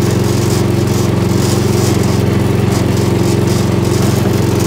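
Gravely 8163-B garden tractor's engine running steadily while the tractor is driven, with a fast, even firing pulse.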